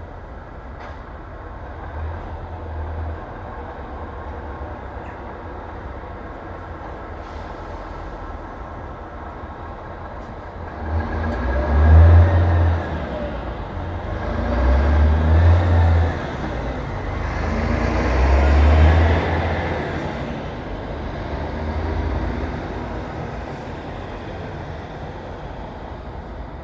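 Street traffic ambience: a steady background of road noise, with a run of heavy vehicles passing close by one after another in the second half, each swelling in a low rumble and fading away.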